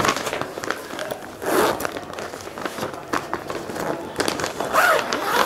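Plastic packaging of a blanket crinkling and rustling as it is handled.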